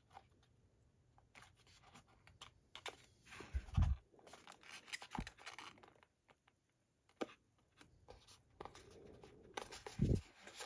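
Fingers rubbing, scratching and pressing at a cardboard box insert, pushing a crushed card section back into shape, with two dull knocks: one about four seconds in and a louder one near the end.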